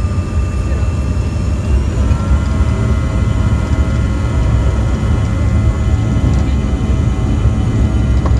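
Bombardier CRJ-200 jet engines at takeoff power, heard from inside the cabin during the takeoff roll: a heavy, steady low rumble with a turbine whine on top that picks up new, slightly higher tones about two seconds in.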